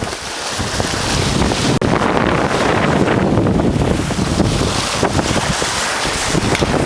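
Wind buffeting the microphone on a moving sailboat, with water rushing and splashing along the hull in uneven gusts.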